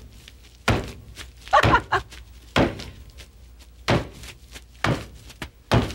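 Ice cubes bundled in a dish rag being whacked against a wooden butcher block to crush them: a series of heavy thuds, about one a second.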